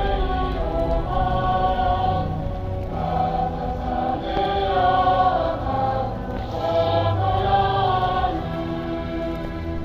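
Music with choral singing: long, sustained notes that shift slowly in pitch.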